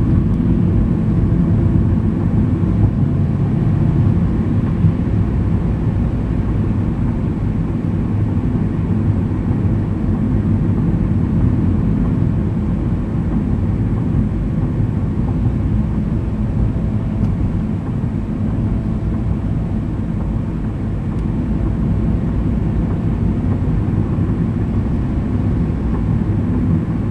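Car driving on the road, heard through an in-car dashcam: a steady, loud low rumble of engine and tyres with no clear changes.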